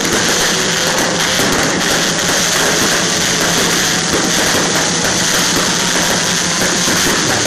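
Fireworks finale barrage: many aerial shells and comets bursting and crackling at once, merging into one continuous dense noise with no pauses between reports.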